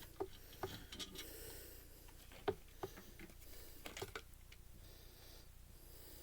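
Scattered faint clicks and taps as the parts of a Blu-ray player are handled during disassembly, with a couple of slightly sharper clicks midway.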